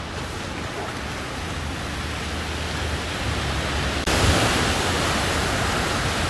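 Steady wash of sea surf with wind noise on the microphone. About four seconds in it jumps suddenly louder and brighter.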